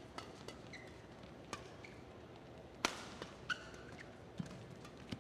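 Badminton shuttlecock struck back and forth by rackets in a doubles rally: about six sharp hits, roughly one a second, the loudest a little past the middle. Short squeaks of court shoes come between the hits.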